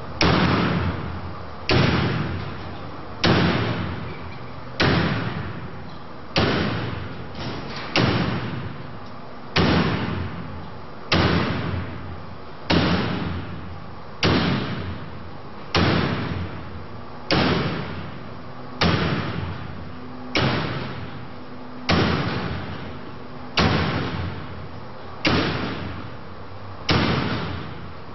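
An axe striking woven metal wire drapery over and over, about one blow every one and a half seconds. Each blow is a sharp crash that rings and echoes before the next.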